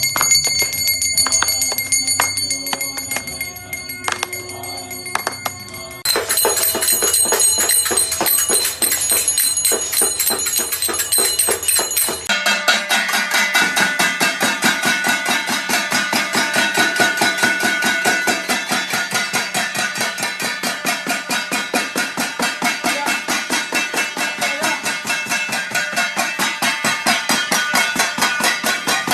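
Metal bells and clanging metal struck rapidly and without pause, ringing with sustained tones. The sound is in three stretches cut together, changing abruptly about 6 s and 12 s in, and the last stretch is a fast, even clanging rhythm.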